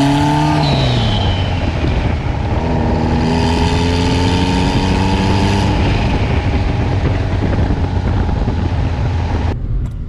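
Turbocharged Honda Civic four-cylinder engine under hard acceleration: revving up, a brief lift off the throttle with a high whistle falling away about a second in, then pulling up in pitch again before settling to a steady run. The sound cuts off abruptly near the end.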